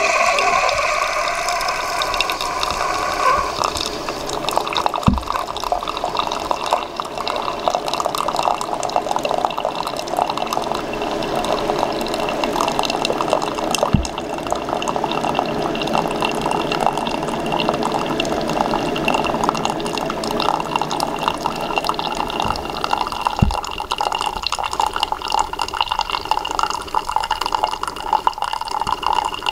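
Keurig single-serve coffee maker brewing: a thin stream of coffee pouring into a ceramic mug, steady throughout. The brewer's pump hum dies away about three seconds in, and a few faint knocks come at intervals.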